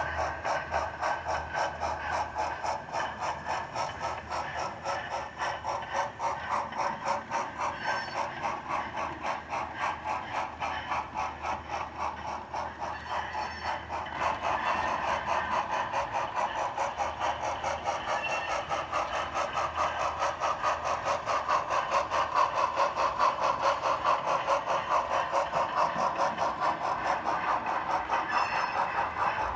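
HO-scale model train running on the layout, a fast, even clicking that carries on throughout and grows louder about halfway through.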